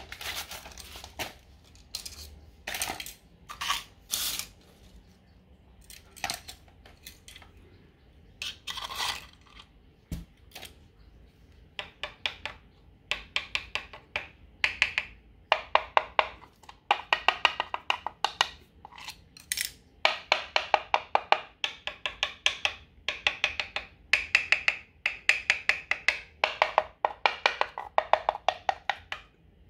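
Plastic screwdriver handle tapping rapidly and repeatedly on ceramic floor tiles, each tap ringing hollow: the sound of tiles that have come loose from the adhesive beneath. A few scattered clicks of tools being handled come first, and the fast runs of tapping start partway through.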